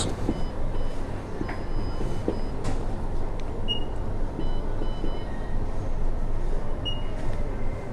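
A steady low mechanical rumble with several short, high electronic beeps at irregular intervals.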